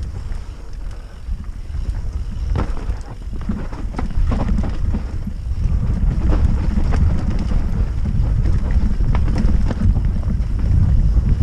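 Wind buffeting a helmet-mounted camera's microphone as a mountain bike descends a dirt trail at speed, with scattered knocks and clicks from the bike rattling over the ground.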